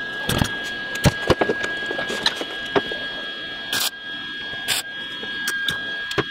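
MIG welder laying spot welds on a car's sheet-metal quarter panel: several short bursts of welding arc, with a steady high-pitched whine underneath.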